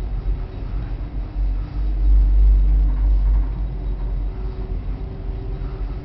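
Low rumble of a car ferry under way through broken ice, surging unevenly, with a faint wavering hum above it.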